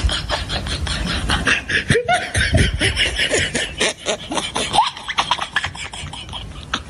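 A person laughing in quick, rhythmic pulses, with a few rising and falling voice sounds in the middle; it fades near the end.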